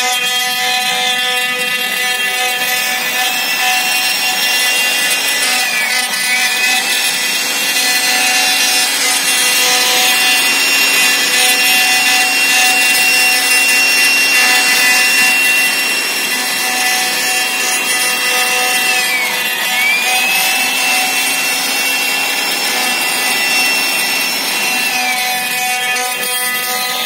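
High-speed CNC router spindle whining steadily while a fine carving bit cuts a relief into MDF, with the hiss of the cut under it. The whine dips briefly in pitch and comes back up a few times.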